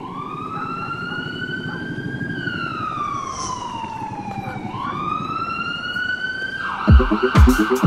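Emergency-vehicle siren in a slow wail, rising, falling and rising again, over a low city rumble. About a second before the end, a beat with heavy kick drums comes in.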